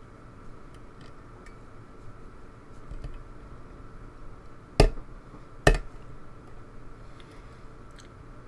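Lock picking: a hook pick working the pins of a pin-tumbler challenge lock under tension, with faint scattered metallic ticks and two sharp clicks about five and six seconds in.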